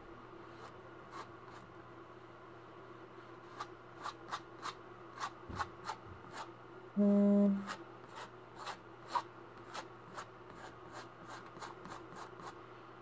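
Painting knife scraping and tapping on a canvas while shaping mountains in oil paint: irregular sharp ticks, a few a second, busiest in the middle. About seven seconds in, a short loud low buzz lasts about half a second.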